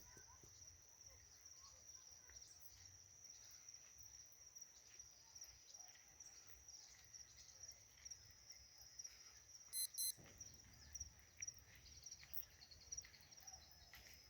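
Faint steady high-pitched trilling of crickets. About ten seconds in come two short, sharp high chirps.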